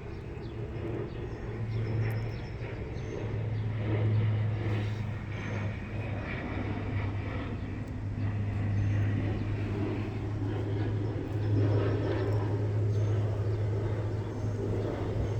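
A steady low mechanical hum, like a running motor or engine, runs throughout, with a rougher rumble underneath.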